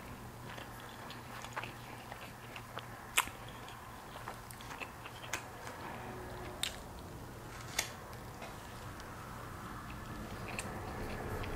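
Quiet close-up chewing of shrimp fried rice eaten with chopsticks, picked up by a clip-on microphone, over a faint steady hum. A few sharp clicks come every second or two.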